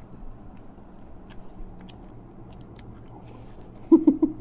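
Quiet chewing and eating of noodles, with a few faint clicks of cutlery on bowls. A short burst of voice comes in quick pulses near the end.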